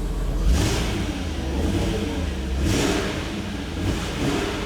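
BMW 840Ci's M62 V8 engine running and revving, the revs rising sharply about half a second in and again near three seconds.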